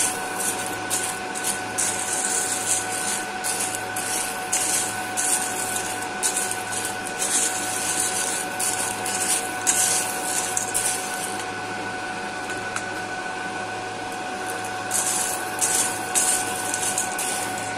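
Cormorant CR600 Electric roaster's cooling fan running steadily at full speed with a whine, during the post-roast cooling stage. Over it, freshly roasted coffee beans rustle as they are stirred round the cooling tray; the rustling pauses about 11 seconds in and picks up again a few seconds later.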